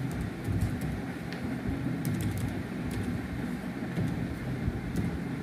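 Steady low background rumble with a few scattered sharp clicks of computer keyboard keys.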